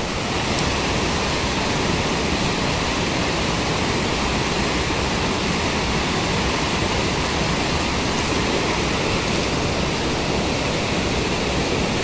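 Mountain stream rushing over a small rocky cascade: a steady, unbroken rush of whitewater.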